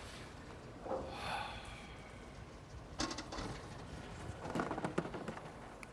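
Bowling-centre ambience: a short voice-like call about a second in, then a sharp knock about three seconds in and a cluster of clattering knocks near five seconds.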